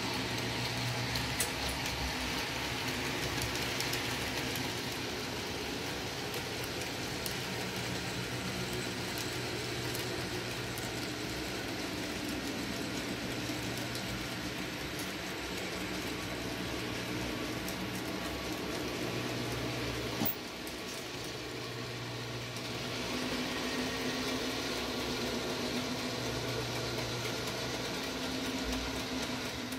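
N gauge model trains running on the layout: a steady hum of small electric motors and wheels on the track, with a single sharp click about twenty seconds in.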